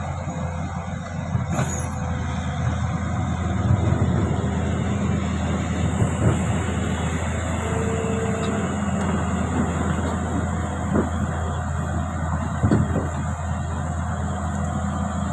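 Komatsu excavator's diesel engine running steadily at a low drone, with a few sharp knocks spread through.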